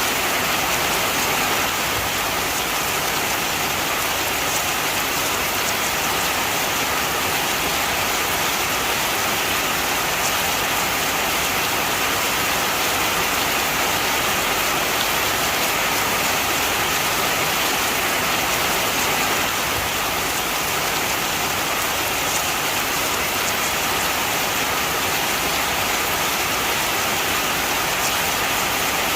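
Heavy rain falling steadily, a dense, even hiss of raindrops.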